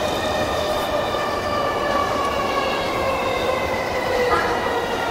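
JR East E233-1000 series electric train slowing into a station: steady rail running noise with a motor whine that falls slowly in pitch as the train brakes.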